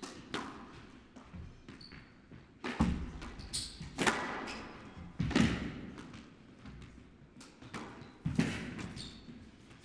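Squash rally: a rubber squash ball struck by rackets and smacking off the court walls in an irregular series of sharp hits, several of them loud and echoing, with a few short high squeaks between.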